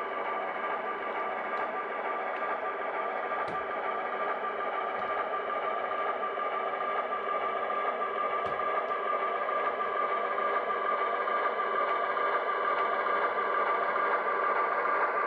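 HO scale model diesel locomotive shoving a cut of model boxcars: a steady hum with a few faint clicks as the wheels roll over the track, getting gradually louder as the train comes closer.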